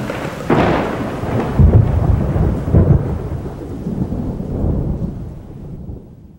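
Thunder: a sharp crack about half a second in, then heavy low rolling rumbles that slowly fade away.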